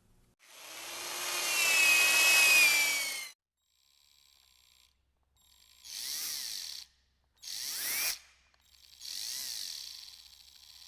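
Retractable cord reel of an old vacuum cleaner spinning in four separate runs as the cord is pulled out and wound back, with a whirring, ratcheting sound. The first run is the longest and loudest; the pitch wavers within each run.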